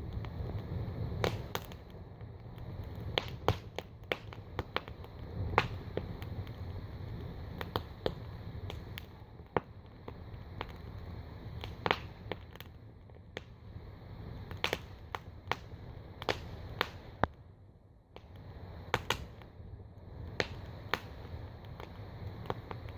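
Wood campfire in a steel wheel-rim fire pit crackling, with irregular sharp pops over a steady low rumble.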